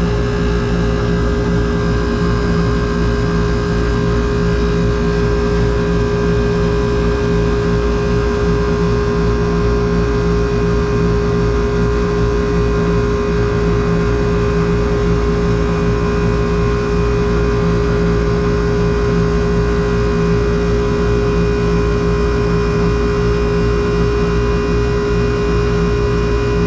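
Air conditioner unit running after a restart, its compressor and condenser fan giving a loud, steady hum with a few fixed tones that do not change.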